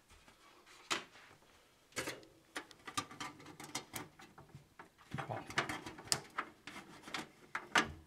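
Side panel of a thin sheet-metal PC case being worked loose and taken off: a string of sharp clicks and knocks, with rattling and scraping that gets busier in the second half.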